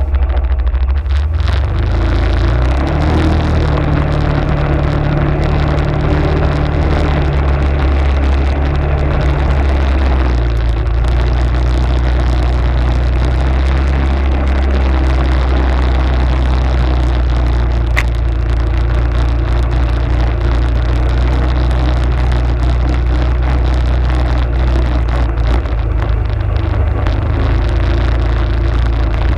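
Arctic Cat ATV engine running steadily while riding, with the engine note shifting in pitch about two seconds in and again around ten seconds in.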